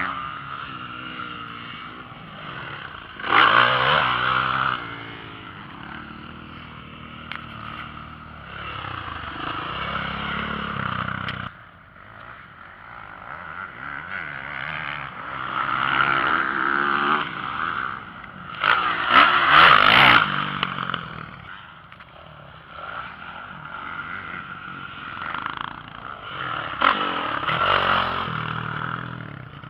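Motocross bikes on the track, engines revving up and falling off as they ride, with three louder close passes: a few seconds in, around the middle (the loudest) and near the end.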